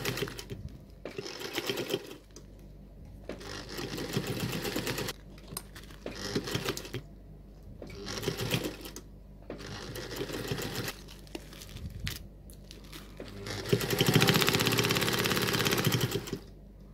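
Vintage sewing machine stitching on a lengthened stitch through several layers of vinyl, felt and fabric, in a series of short runs with brief pauses between. The last run, from about 14 seconds in, is the loudest and longest, and it stops just before the end.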